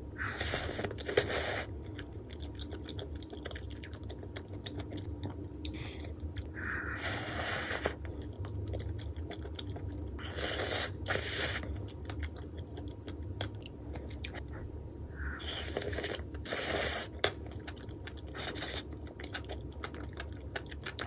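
Close-miked chewing of a spicy rice dish with beef intestine (daechang) and enoki mushrooms, coming in spells every few seconds, with a few sharp clicks mixed in.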